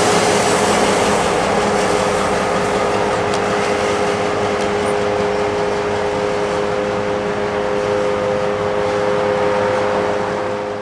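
EMD GP38-3 diesel-electric locomotive running steadily as it moves slowly with a string of freight cars, with a constant droning hum and a few held tones.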